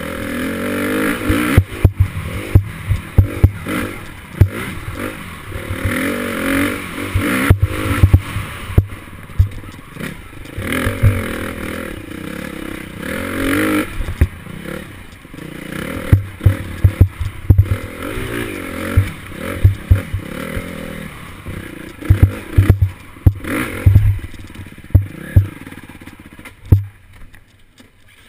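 Dirt bike engine revving up and backing off over and over as it is ridden over rough trail, with frequent thumps and clatter from the bike hitting bumps. The engine drops away near the end.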